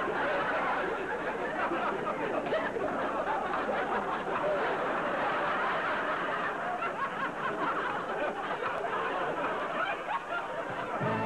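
Audience laughing and chuckling without a break, with music starting up at the very end.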